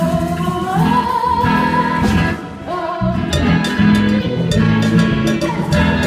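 A musical-theatre song performed live: a high female voice slides up into a long held note, over band accompaniment with drums that grow more prominent in the second half.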